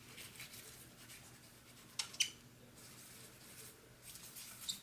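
Folded tissue scrubbing old thermal paste off a laptop graphics chip: faint repeated rubbing strokes, with a few sharper scratches about two seconds in and again near the end.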